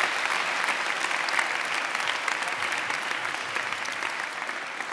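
A large audience applauding, a dense steady clapping that slowly tapers off toward the end.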